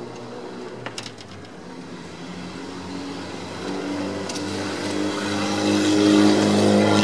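A motor vehicle's engine running, growing steadily louder over the second half as it draws near. A few light clicks come about a second in.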